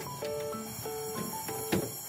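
Light instrumental background music, a simple melody of short held notes, with one sharp click near the end.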